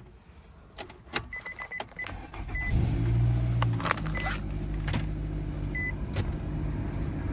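Inside a car: a few clicks and a dashboard chime beeping in short pips, then about three seconds in the car's engine starts from cold and settles into a steady idle.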